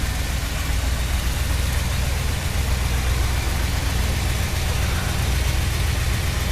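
An engine idling steadily: a low, even rumble with no revving.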